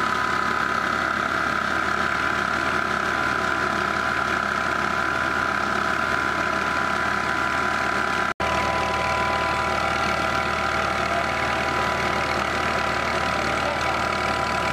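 Massey Ferguson 240 tractor's three-cylinder diesel engine running steadily under load, driving a flour mill through its PTO shaft and a flat belt, with a steady high hum from the mill over the engine. The sound cuts out for a split second about eight seconds in.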